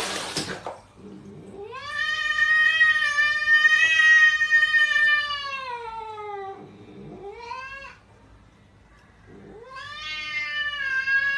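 A cat yowling in drawn-out calls: one long call that falls in pitch at its end, a short rising call, then another long call near the end.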